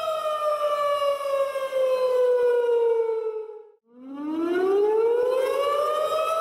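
Outdoor tornado warning siren wailing: its tone slides down in pitch, cuts out for a moment a little past halfway, then winds back up to full pitch near the end.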